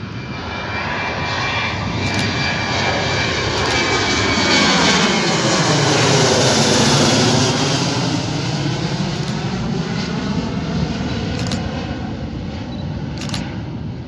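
Boeing 737-700 jet with CFM56-7B turbofan engines at takeoff climb power, passing overhead. Its roar swells to a peak about halfway through and then fades slowly, with a tone that sweeps down and back up as the plane goes over. A few camera-shutter clicks are heard over it.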